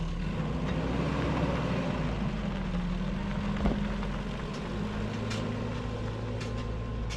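A motor vehicle's engine running steadily; its pitch rises about a second in, then eases back down and holds level. A single short click comes near the middle.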